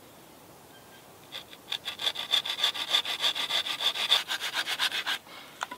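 Bahco Laplander folding saw cutting an angle into the end of a thin wooden stick with quick back-and-forth strokes, starting about a second and a half in and stopping about a second before the end, followed by a single light click.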